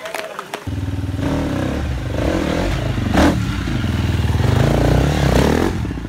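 Dirt bike engine running at low revs close by. It comes in abruptly less than a second in and grows louder as the bike passes, with a single sharp clack about three seconds in.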